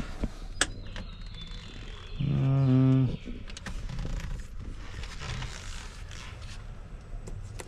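2004 Pontiac GTO's horn sounded once, a single steady blast lasting about a second, around two seconds in. A sharp click comes shortly before it, and there is light handling noise around it.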